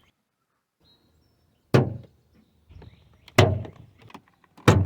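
Toyota Sienna door being worked, its broken door check stop giving three loud, sharp clunks spaced about a second and a half apart: the sign of a door check that has broken loose from its stop.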